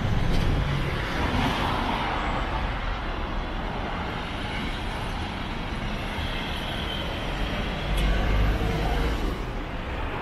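Road traffic on a city street: cars and buses passing with a steady low rumble, swelling louder for a moment near the end.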